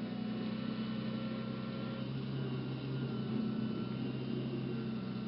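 Steady low hum of an idling vehicle engine, with faint thin tones above it that hold level throughout.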